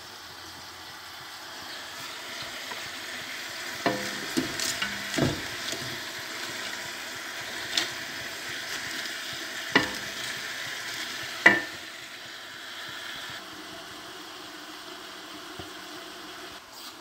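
Savoy cabbage sizzling in a pot while it is stirred with a wooden spoon, with several knocks of the spoon against the pot, a cluster about four to five seconds in, then single ones, the last and loudest near the end.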